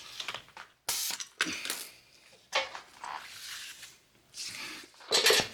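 Several short hisses of compressed air at a newly mounted tire's valve stem as the pressure is set to about 32 psi.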